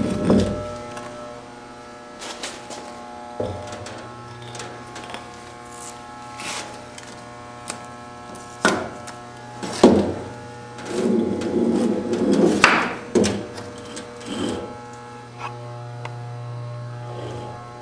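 Footsteps and camera-handling noise: scattered knocks, scuffs and a longer rustling stretch about eleven seconds in. A steady low hum comes in a few seconds in and holds.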